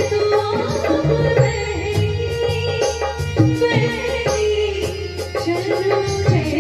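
Hindi film song music: tabla keeping a steady rhythm under a sliding melody line.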